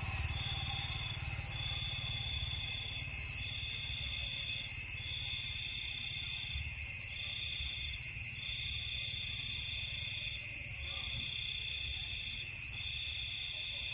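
Night insects, crickets or similar, trilling steadily and high-pitched, the chorus swelling in long pulses about every second and a half, over a low rumble.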